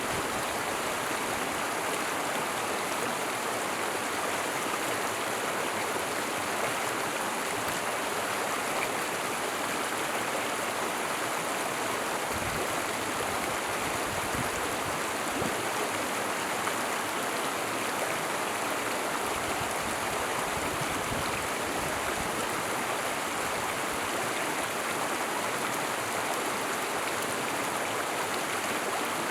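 Small stream flowing, a steady, unbroken rush of water.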